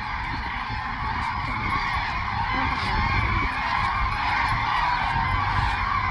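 A large flock of common cranes calling: a dense chorus of many overlapping trumpeting calls, steady and unbroken.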